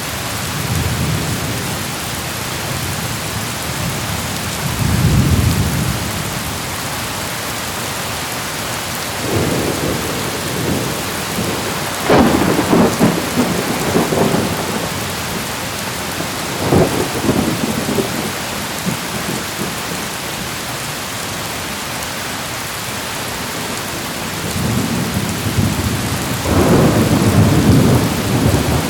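Heavy rain falling steadily, with repeated rolls of thunder: a rumble about 5 seconds in, sharp cracks breaking into long rumbles at about 12 and 17 seconds, and a long loud roll near the end.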